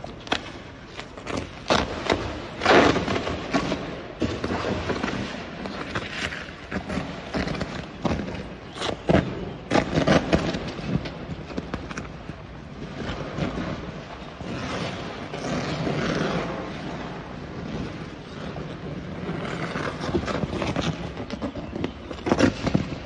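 A burning CAF commuter train giving off irregular sharp bangs and cracks, some in quick clusters, over a rushing noise; the fire was set off by an electrical discharge from the high-voltage overhead cables that fell onto the carriage.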